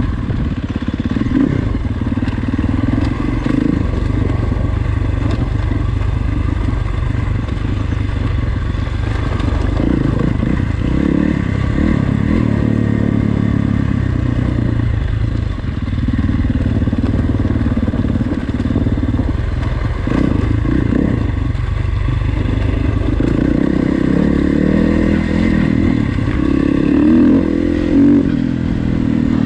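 Enduro motorcycle engine running as it is ridden, the revs rising and falling throughout.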